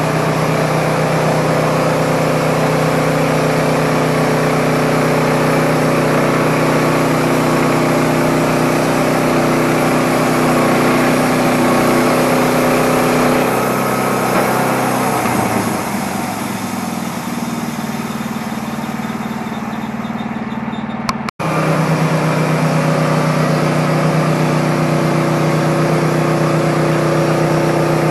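Wood-Mizer LT15 portable band sawmill running, its engine holding a steady pitch as the band blade saws through a dry eastern red cedar log. About 14 seconds in the engine drops in pitch and runs quieter, and a little after 21 seconds the steady high running abruptly returns.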